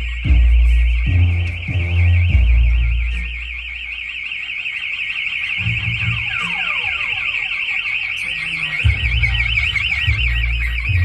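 Loud electronic music played through a car sound system with two 15-inch subwoofers: heavy bass pulses under a fast, warbling siren-like tone. The bass eases off for a couple of seconds in the middle, then comes back hard.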